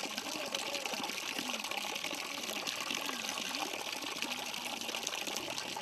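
Water running steadily from a village spring, a constant trickle and splash.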